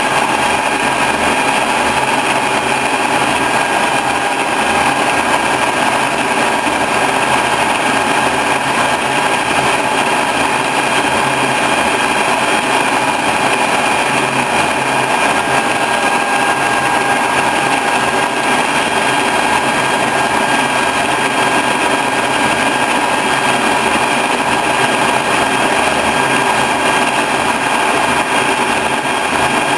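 Horizontal boring mill running steadily while it machines a milling vise, a constant whine of several tones over the noise of the cut.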